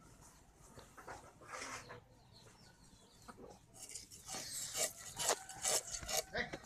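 Climbing perch coated in wood ash being scraped against a curved iron floor blade to strip its scales and slime. A faint scrape comes early, then a run of quick rasping strokes from a little past halfway.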